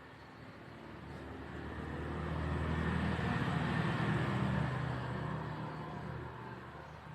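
A motor vehicle passing by: its engine and road noise swell up, are loudest in the middle, and fade away over several seconds.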